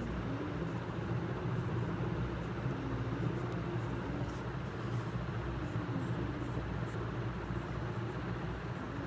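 Steady low background hum and rumble with faint wavering tones, with a few faint ticks of a pencil on paper.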